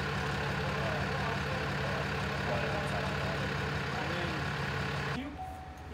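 Heavy vehicle engine idling steadily with a low, even hum, with faint voices under it; it cuts off abruptly about five seconds in.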